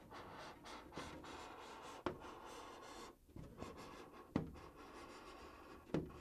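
Faint scratching of a scoring tool's point drawn slowly along the trim line of a clear polycarbonate RC truck body, with a few light ticks as the shell flexes or the point catches.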